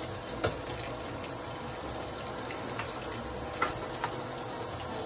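Egg-battered fish fillet sizzling in hot oil in a skillet, a steady hiss, with a few light clicks of a utensil against the pan or bowl.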